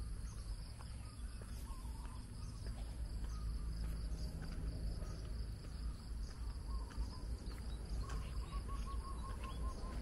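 Outdoor insect chorus: a steady high-pitched drone of crickets or cicadas over a low steady rumble. A short repeated chirping call comes in near the end.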